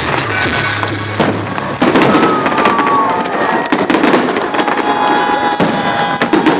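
Fireworks display going off in a rapid string of bangs and crackles, getting much denser about two seconds in.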